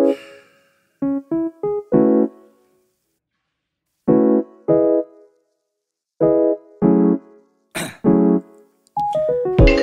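Background music: electric piano playing short, separate chords with silent pauses between them, with a fuller backing track coming in near the end.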